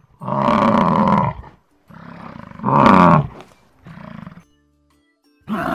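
Buffalo sound effect: two loud bellowing calls about a second long each, then a shorter, quieter one.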